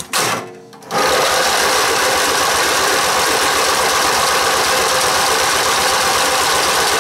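Riding lawn tractor engine being cranked by its electric starter: a brief burst, then steady cranking from about a second in with an even chugging pulse, the engine not catching. The carburetor has just been cleaned out and the engine will not start.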